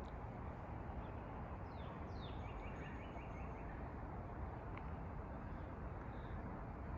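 Songbird calls, two quick falling notes about two seconds in, then a fast run of about six short chirps, over a steady low background rush.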